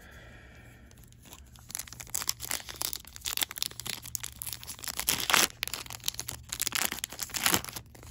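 Foil Yu-Gi-Oh booster pack wrapper crinkling and being torn open by hand, a dense crackling that starts about a second and a half in, with the loudest rips around the middle and near the end.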